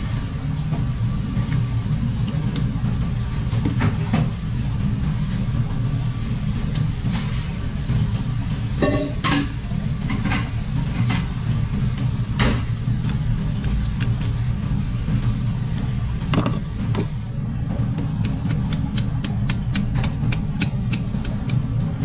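Steady low mechanical rumble, with a few sharp knocks of the knife and fish against a plastic cutting board as a grouper is filleted. Near the end a run of soft, evenly spaced ticks begins.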